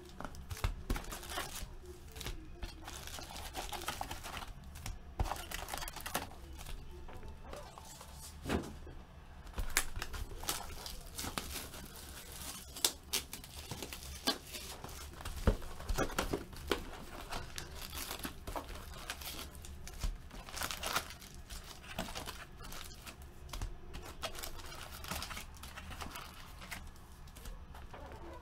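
Foil wrappers of Bowman Chrome football card packs being torn open and crinkled, with cards handled on a table: irregular rustling and crinkling with many small sharp clicks.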